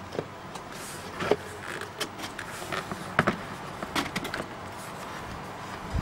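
Hard plastic clicks, knocks and scrapes as a PVC pipe housing is handled and pushed onto a plastic pump body, a dozen or so irregular sharp taps, with a louder knock at the very end.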